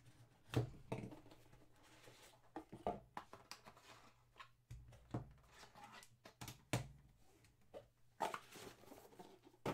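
Cardboard trading-card box being handled and opened by hand: scattered rustles, scrapes and light knocks, the sharpest about half a second in, as a card in a hard plastic holder is taken out and set down.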